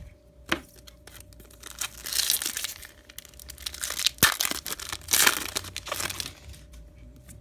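Plastic-foil wrapper of a Topps baseball card pack crinkling and tearing as it is opened, in several rustling bursts, with a sharp snap about four seconds in.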